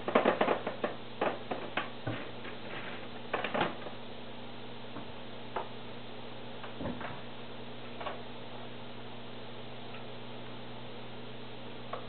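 Plastic parts of a canister filter being handled: a quick run of clicks and knocks in the first few seconds, then an occasional single knock. A steady low hum runs underneath.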